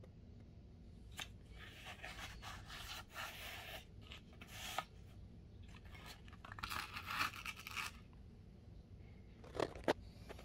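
Handling noise: rustling and scraping against a soft fabric pistol case in two stretches of a few seconds each, then two short knocks near the end.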